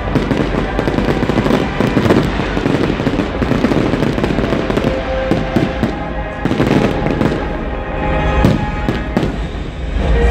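Fireworks display bursting in quick, overlapping bangs and crackles, with music playing underneath.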